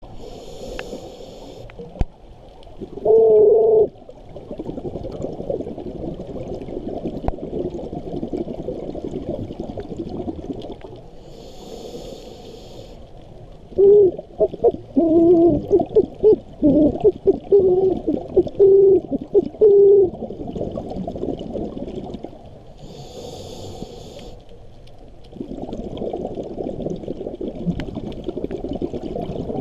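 Scuba regulator breathing heard underwater: a short hiss with each inhalation, three times, each followed by a long rush of exhaust bubbles with a warbling tone in it. The longest and loudest exhalation is around the middle.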